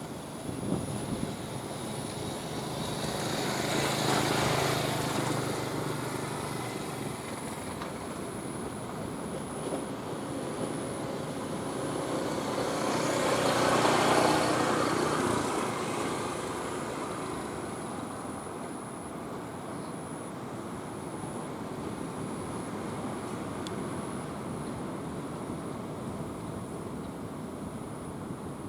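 Motor vehicles passing: engine and road noise swells and fades twice, about four seconds in and again about fourteen seconds in, over a steady background of traffic hum.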